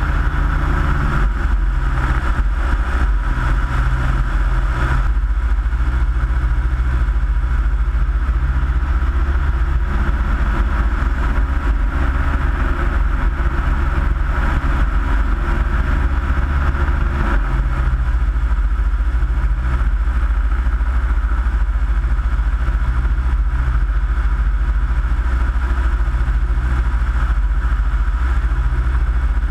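Minimax ultralight aircraft in cruise flight: its engine and propeller droning steadily, heard from a camera on the wing, with a heavy low rumble of wind noise.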